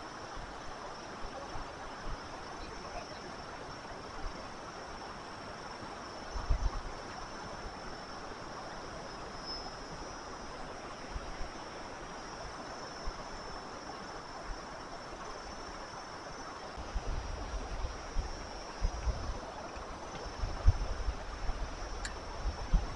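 Fast-flowing water and surf at a river mouth, a steady rush. From about 17 seconds in, wind buffets the microphone in low rumbling gusts.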